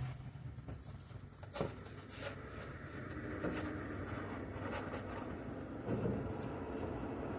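Light scratching and rubbing with a few sharp clicks, from hands handling things around the truck's battery box. A steady low rumble builds from about three seconds in.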